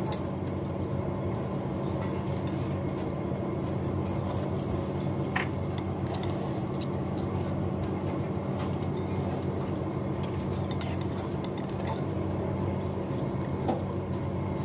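Metal cutlery and a porcelain soup spoon clinking now and then against bowls, with one clearer ring about five seconds in, over a steady low background hum.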